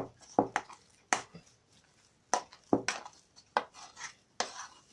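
Spoon knocking and scraping against an enamel bowl while stirring thick curd dough: about eight sharp, irregular clinks with quiet gaps between them.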